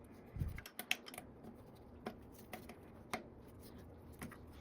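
Sparse light clicks and taps of a hand tool working a small screw into an e-bike hub motor, about six or seven scattered irregularly.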